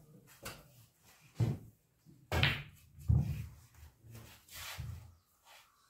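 A pool shot on a pool table: a sharp click of the cue striking the cue ball about a second and a half in, then two louder knocks of balls hitting each other, the cushions or a pocket, and a softer knock near the end.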